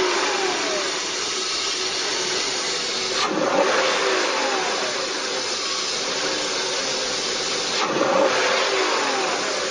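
BMW car engine running with a homemade HHO hydrogen cell switched on, the throttle blipped twice, about three and eight seconds in, each rev rising sharply then falling back to idle.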